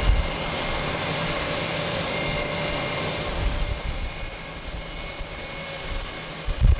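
Twin jet engines of a departing wide-body airliner running at takeoff power, a steady rushing noise with a faint whine, fading about halfway through as the plane climbs away. Wind buffets the microphone with low gusty rumbles.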